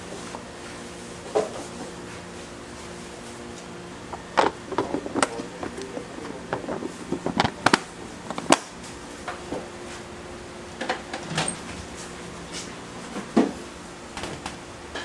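Scattered clicks and knocks of kitchen work with utensils, bunched in three short flurries, over a steady electrical hum.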